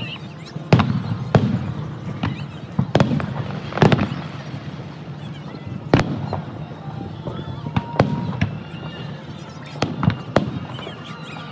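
Aerial firework shells bursting in a public display: about ten sharp bangs at irregular intervals, some less than a second apart, each trailing off in a low rumbling echo.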